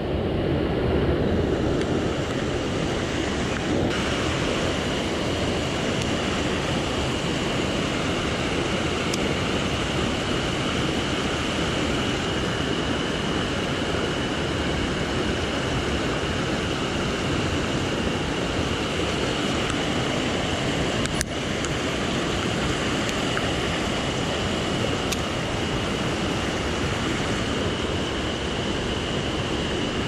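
Mountain stream rushing steadily.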